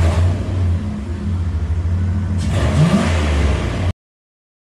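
Car engine running with a deep, steady rumble, revved briefly about three seconds in. The sound stops abruptly just before the end.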